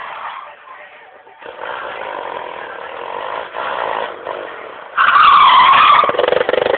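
Sport quad (ATV) engine revving, faint and distant at first, then suddenly loud close by about five seconds in, its pitch dipping and rising again.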